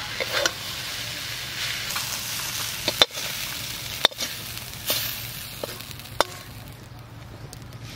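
Fried water spinach (kalmi shak) sizzling in an aluminium karai while a metal spatula stirs it and scrapes it out onto a steel plate, with a few sharp clicks of metal on metal. The sizzle dies down near the end.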